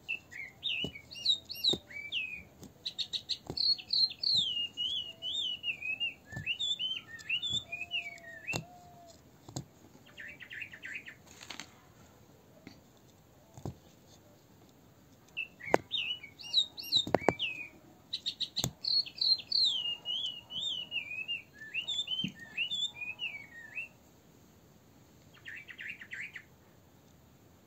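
A songbird singing a long, fast warbling song of chirps and quick rising and falling notes, each followed by a short buzzy trill. The song comes twice, the second time almost the same as the first.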